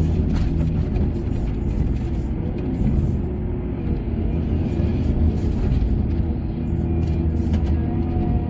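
Heavy mining machinery engine running steadily with a deep rumble.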